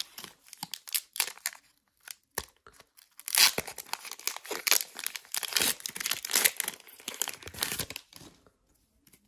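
Foil wrapper of a Pokémon trading-card booster pack crinkling and being torn open. Scattered crackles come first, then a dense stretch of crinkling and tearing from about three seconds in until near the end.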